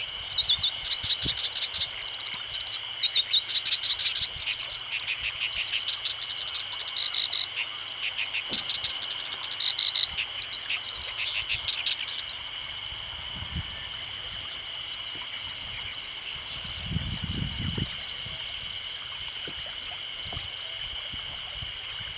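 Black-browed reed warbler singing a rapid, chattering song of short notes in quick runs for about the first twelve seconds, then falling mostly silent, over a steady high background drone.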